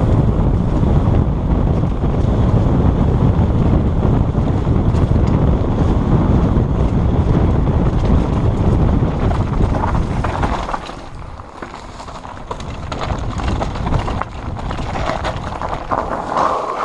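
Wind buffeting the helmet-mounted action camera's microphone on a fast mountain-bike descent, with the bike rattling over the rocky trail. About ten seconds in the wind rumble drops away as the bike slows onto a gravel road, leaving tyre crunch and clicking rattles.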